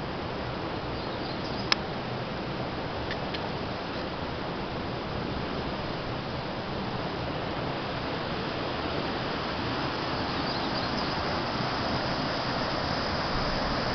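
Mountain stream water rushing over granite rocks, a steady rush that grows a little louder near the end. A single sharp click about two seconds in.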